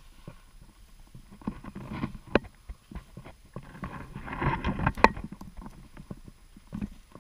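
Footsteps crunching on thin snow and brushing through dry weeds, in an irregular run of crisp steps and rustles that grows busiest about four to five seconds in, with one sharp crunch near the five-second mark.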